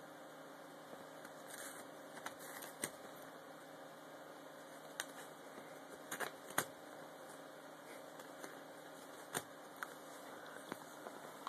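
Sheet of paper crackling and rustling as a cat bites and tugs at it: a handful of sharp, brief crackles with softer rustling between, over a faint steady hiss.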